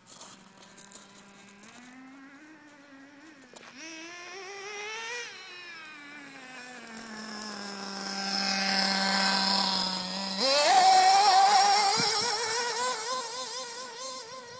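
Small engine of a radio-controlled car running under throttle, its pitch rising and falling, held steady for a few seconds, then jumping sharply higher and loudest near the end.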